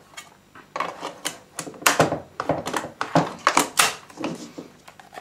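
Metal box magazine clicking and knocking against the magazine well and receiver of an ARES L1A1 SLR airsoft rifle as it is worked into place: a quick series of sharp clicks and clacks, loudest about two seconds in and again near the end.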